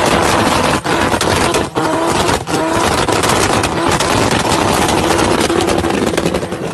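A first-generation Mazda RX-7 doing a burnout: the engine is held at high revs while the rear tyres spin and squeal, and the engine note dips briefly a few times.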